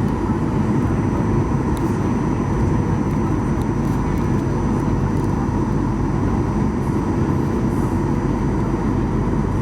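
Steady cabin noise of a Boeing 737-800 on descent: a constant rumble of its CFM56 engines and airflow past the fuselage, with faint steady tones over it.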